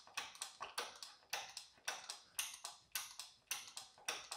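Hand-operated gear oil pump on top of a fluid bottle, being worked to pump automatic transmission fluid into the transmission fill hole: an even run of short clicking strokes, about four a second.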